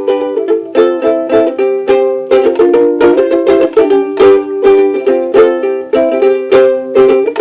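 A strummed acoustic string instrument playing a steady rhythm of chords: the instrumental intro to a song.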